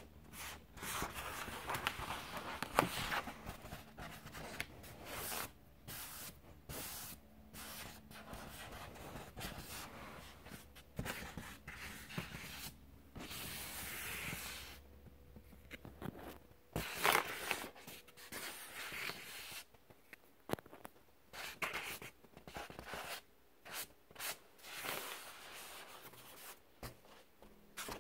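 Fingertips scratching and rubbing over the taut inflated vinyl of a kids' inflatable pool, in irregular short strokes with a few sharper taps.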